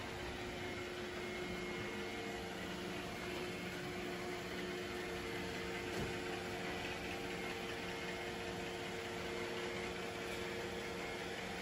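Steady mechanical hum of household machinery, with a few faint steady tones running through it and a single light tap about halfway through.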